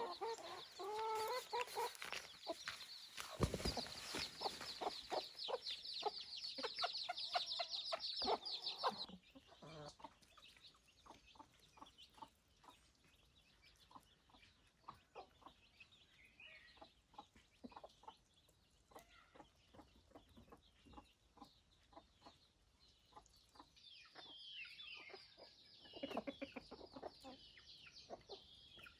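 A flock of chickens clucking and calling, busy and fairly loud for the first nine seconds, then stopping abruptly to sparser, fainter calls, with another flurry of calls near the end.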